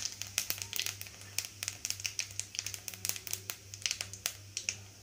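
Whole spices, crushed cinnamon and fennel seeds, crackling in hot oil in an aluminium kadai: quick irregular pops and clicks as they fry.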